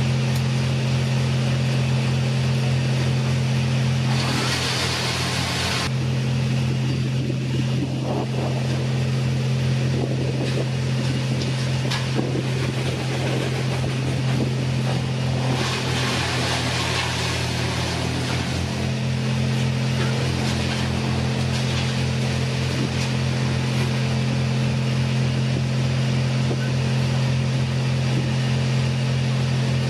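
An engine running steadily at a constant pitch, with an even low throb beneath it. A rushing, hissing noise rises over it twice, for about two seconds about four seconds in, and for about three seconds midway.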